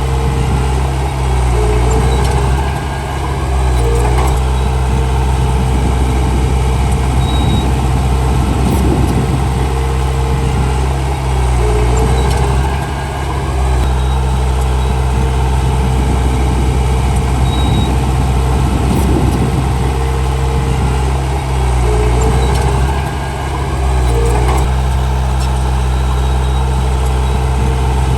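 Heavy diesel engine of earthmoving machinery running steadily under load, its level dipping briefly about every ten seconds.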